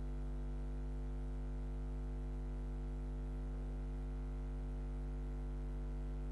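Steady low electrical hum with a stack of overtones, unchanging; no sound of the game comes through it.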